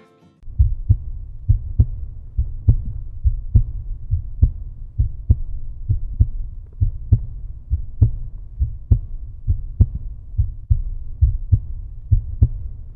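A steady low thudding pulse, like a heartbeat: a strong beat a little under once a second with a weaker beat between.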